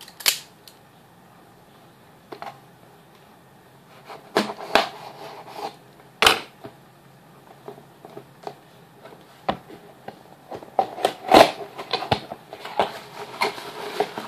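A cardboard shipping box being handled and opened by hand: scattered sharp scrapes and knocks of the cardboard, then a busier rustle of flaps and packing near the end.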